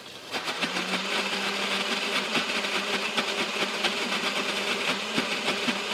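Countertop blender on its liquefy setting, pureeing a jar of soft cooked apples. The motor starts just after the beginning and then runs steadily.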